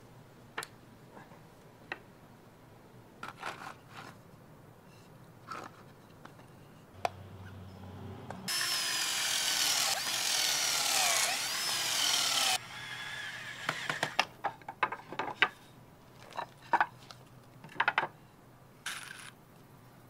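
Cordless drill boring a pocket hole into a wooden board held in a pocket-hole jig, loud for about four seconds about halfway through, its whine shifting in pitch as the bit cuts. Before and after it, scattered knocks and clicks of wooden slats and short bursts of the drill.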